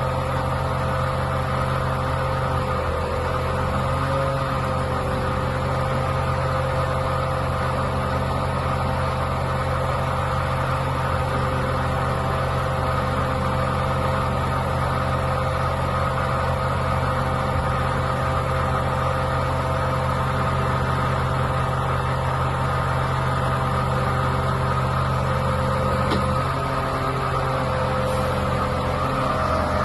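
Diesel engine of a Mercedes-Benz Actros 3241 concrete-pump truck running steadily, with a steady higher whine over it.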